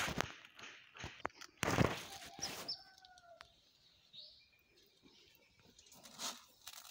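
Granular fertilizer being scooped and scattered by hand from a plastic bucket: short gritty rustles, the loudest about two seconds in. A bird calls faintly around three to four seconds in.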